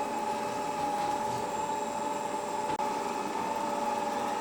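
Ecovacs Deebot M81 Pro robot vacuum running as it cleans a carpet: a steady motor hum with a high whine held at one pitch.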